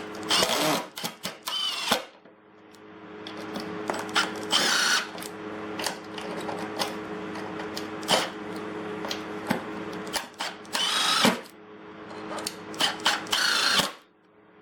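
Milwaukee M18 Fuel Gen 3 cordless impact driver driving screws into wood, its rapid hammering coming in repeated bursts. There are short pauses between screws, one about two seconds in and one near the end.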